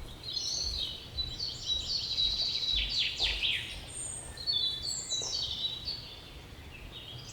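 Birds chirping and calling: a string of short high chirps and quick downward-sliding notes, busiest in the middle and thinning out near the end.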